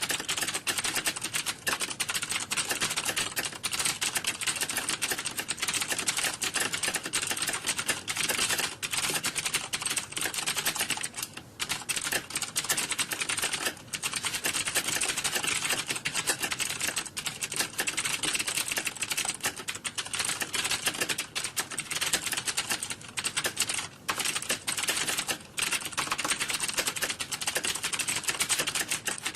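Computer keyboards being typed on, several at once: a dense, continuous clatter of keystrokes with a few short lulls.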